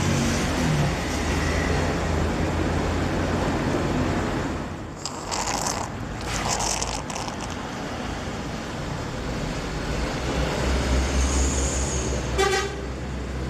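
Welding machine running steadily with a low hum and noise while it drives about 50 amps DC through a water electrolysis cell. A short horn-like toot sounds near the end.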